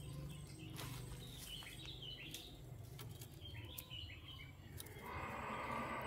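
A canary's short chirps: two brief runs of high notes a couple of seconds apart, over a faint low hum. Near the end a louder, steady sound comes in.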